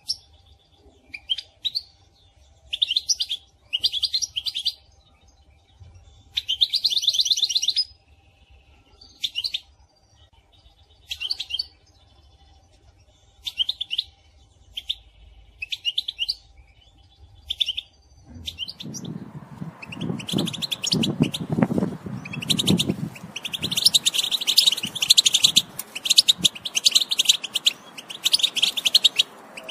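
European goldfinch calls: short twittering bursts every second or two, turning about two-thirds of the way in into a dense, near-continuous chatter with a low noise underneath for a few seconds. It is billed as a female goldfinch's chatter (betbeta), used to stir a male into song.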